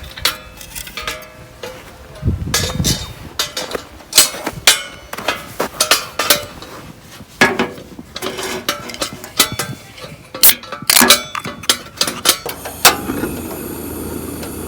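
Dishes and cooking utensils clattering: a run of sharp clinks and knocks at irregular intervals, then a steady hiss takes over near the end.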